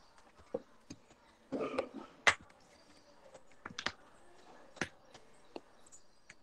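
Scattered faint clicks and taps, with a short rustling noise about one and a half seconds in and the sharpest click just after two seconds.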